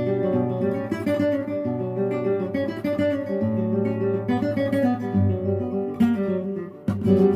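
Acoustic guitar music, notes plucked and strummed in a lively run.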